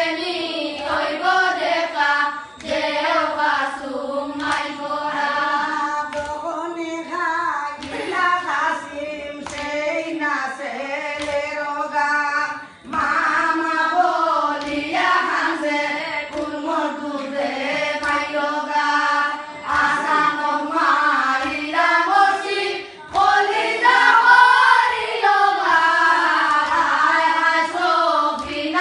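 A group of voices chanting a Muharram mourning lament together, a melody sung in unison with short breaks between phrases. Short hand beats keep time under the singing.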